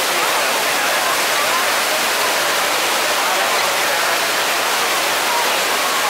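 Jewel Changi Airport's Rain Vortex, an indoor waterfall falling from a round opening in the glass roof into its pool, giving a steady, even rush of falling water.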